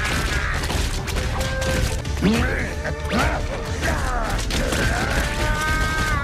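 Anime fight sound effects: a rapid flurry of punches and sharp impacts, many hits close together, over dramatic background music.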